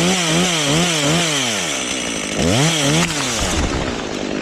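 Chainsaw at high revs cutting into a large limb, its pitch dipping and recovering about twice a second under load. It eases off about two seconds in, revs up again briefly, then drops back to a rougher, lower running.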